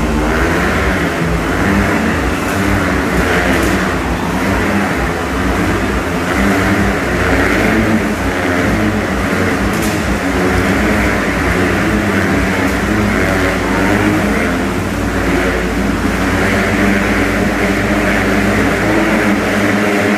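Motorcycles circling inside a steel-mesh globe of death, their engines revving continuously, the note swelling and easing every second or two.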